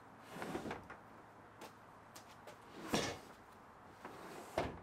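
Plastic kayak hull knocking and scraping as it is pushed into a pickup bed and lifted onto another kayak: three dull knocks with short scrapes, the loudest about three seconds in.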